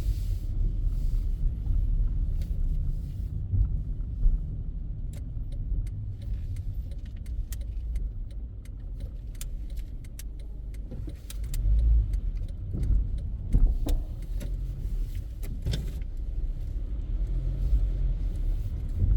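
Low steady rumble of a car heard from inside the cabin as it moves slowly, with scattered light clicks and rattles through the middle.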